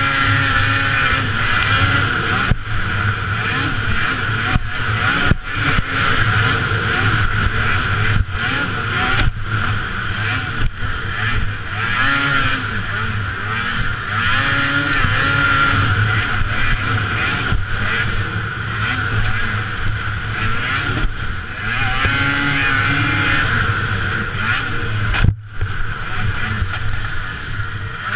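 Two-stroke race snowmobile engine heard from the rider's helmet camera under hard riding, its pitch rising and falling again and again as the throttle opens and closes, with wind rush on the microphone. The sound cuts out for an instant near the end.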